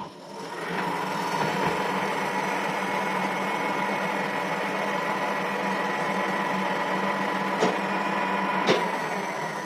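Metal lathe running steadily with a steady whine and hum. It builds up over the first second, and two sharp clicks come near the end.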